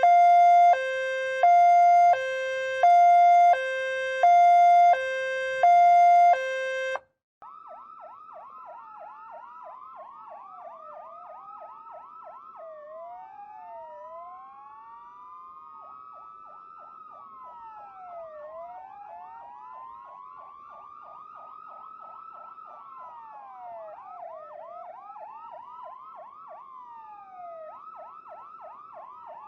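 Two-tone hi-lo ambulance siren, switching between a high and a low note about every half second, cuts off about seven seconds in. After a short gap, quieter sirens follow: a rapid yelp and slower rising-and-falling wails that overlap one another.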